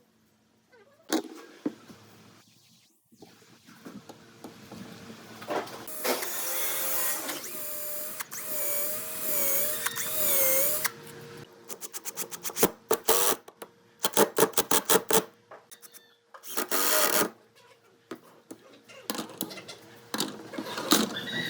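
Workshop tool noise: a small power tool runs for a few seconds with a wavering pitch, then a long run of sharp clicks and knocks.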